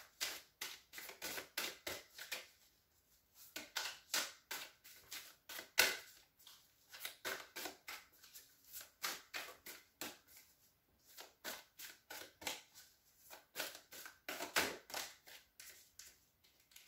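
Tarot deck being shuffled by hand: quick runs of cards flicking and slapping against each other, broken by short pauses.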